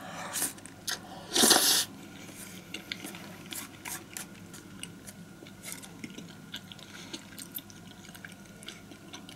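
A person eating from a noodle hot pot: a short loud slurp about a second and a half in, then soft wet chewing with many small mouth clicks.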